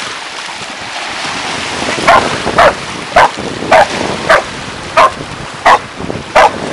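Dalmatian barking repeatedly, about eight short, loud barks starting some two seconds in, over the rush of surf breaking over the rocks and wind on the microphone.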